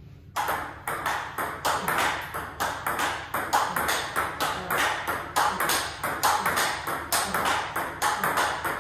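Table tennis rally: sharp, rapid clicks of the ball off Hurricane 3 Neo rubber bats and bouncing on the table, about four to five a second in a steady rhythm, during a forehand loop exchange. The clicks begin after a brief pause at the very start.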